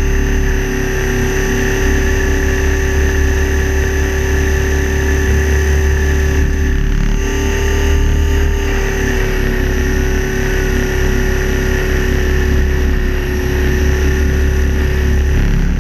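Align T-Rex 550 electric RC helicopter heard from a camera mounted on the airframe: the steady whine of its motor and drive gears over a heavy rotor rumble and wind rush.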